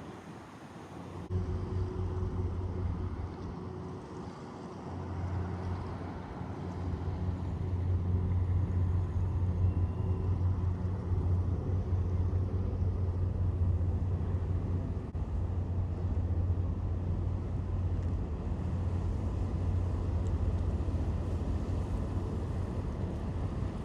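Low, steady engine rumble that eases off a few seconds in, then builds and holds.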